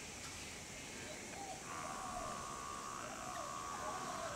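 Wild outdoor ambience of birds calling in short, warbling notes over a steady insect buzz that comes in about a third of the way through.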